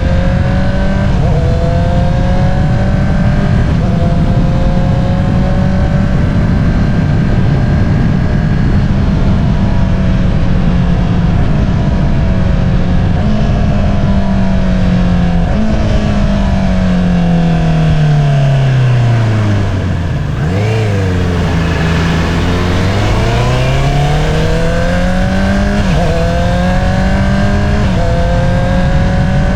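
2022 Honda CBR650R inline-four engine through an Akrapovič single-outlet exhaust, running at steady revs under way. About halfway through the revs fall steadily as the bike slows, then climb again under acceleration, with short dips in pitch at the gear changes.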